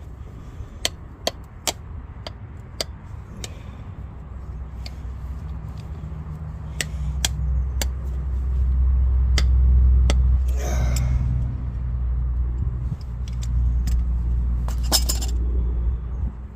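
Sharp metallic clicks and clinks of pliers biting on and working a seized drum-brake part back and forth. A low rumble swells through the middle and later part, with a brief louder scrape near the end.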